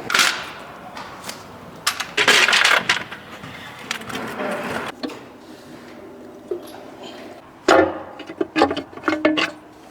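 Metal hand tools and engine parts clicking and clanking during engine disassembly, with a fast run of clicks about two seconds in and a cluster of knocks near the end.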